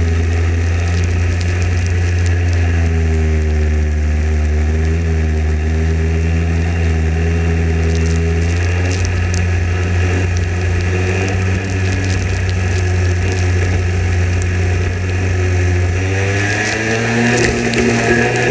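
Racing kart engine running at speed, heard onboard, its note wavering through the corners and rising about sixteen seconds in as the kart accelerates.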